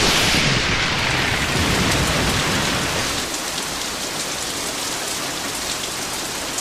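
Steady hiss of noise, like rain, cutting in suddenly as the music stops; it eases slightly about three seconds in.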